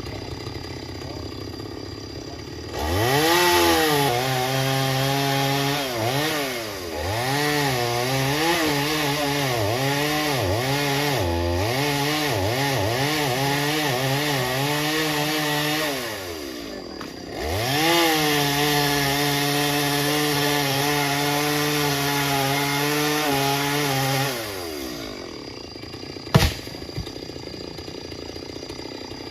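Chainsaw engine opened up to full throttle in two long bursts, its pitch sagging and recovering repeatedly as it works. It drops briefly between the bursts and falls back to idle near the end. A single sharp knock comes a couple of seconds after.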